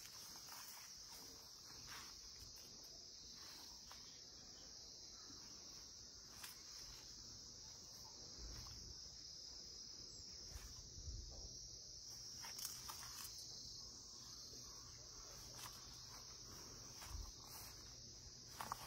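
Faint, steady high-pitched chirring of insects, with a few soft clicks and rustles now and then.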